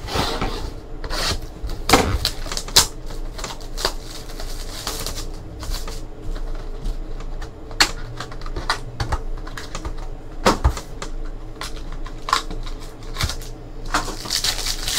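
Trading cards being handled and flipped through by hand: irregular clicks and short rustles of card stock and pack packaging.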